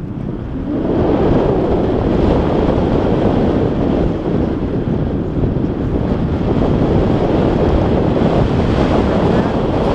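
Wind rushing over an action camera's microphone on a paraglider in flight: a loud, steady buffeting roar of airflow that swells about a second in and then holds.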